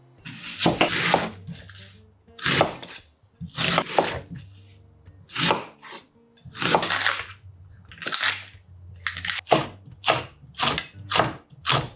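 A chef's knife cutting through an onion on an end-grain wooden cutting board, each stroke a crunch through the layers that ends with the blade hitting the wood, about one stroke every one to two seconds. From about nine seconds in come quicker slices through green chilies, about two a second. Soft background music runs underneath.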